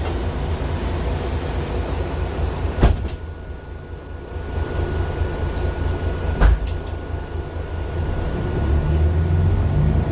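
Mercedes-Benz Citaro LE city bus with its Daimler OM 457 hLA diesel, heard from inside: a steady low engine rumble, broken by two sharp thumps about three and a half seconds apart with a thin steady high tone between them. The engine rumble grows louder near the end.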